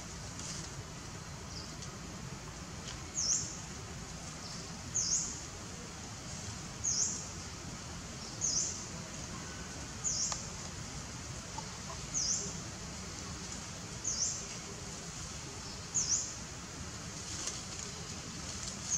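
A bird repeating one short, sharp, high chirp about every two seconds, over a steady high-pitched hiss.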